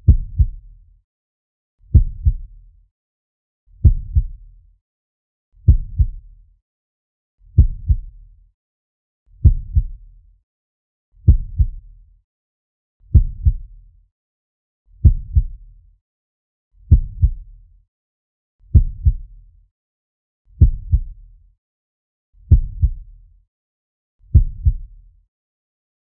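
Slow heartbeat sound effect: a low double thump repeating evenly about once every two seconds, with silence between the beats.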